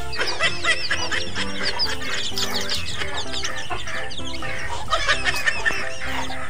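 A crowd of chicks peeping continuously in quick, high chirps, over background music with a simple stepping melody.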